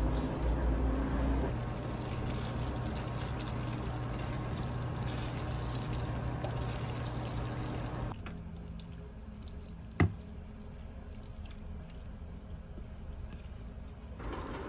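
Saucy bracken pasta cooking and being tossed with tongs in a frying pan. A steady hiss drops away sharply about eight seconds in, leaving quieter wet squishing and light ticks, with one sharp clink of the tongs on the pan about ten seconds in.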